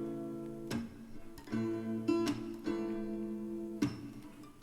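Background music: acoustic guitar chords strummed and left to ring, with no singing.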